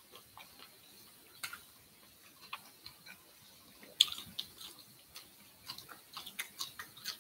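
A person chewing grilled squid and fresh herb leaves: soft, irregular mouth clicks and smacks. A sharper click comes about four seconds in, and a quicker run of clicks near the end.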